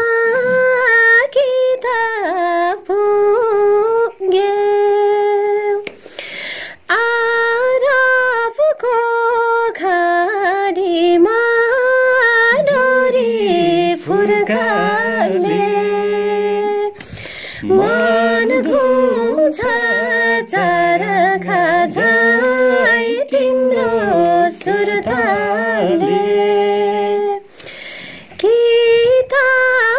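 A woman singing a Nepali folk song unaccompanied, in a high voice with long held and ornamented notes, pausing briefly between lines. About twelve seconds in, a second, lower voice joins and sings along for much of the rest.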